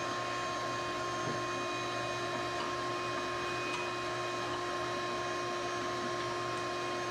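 Shop vacuum running steadily, its hose sucking dirt out of an old traffic signal housing.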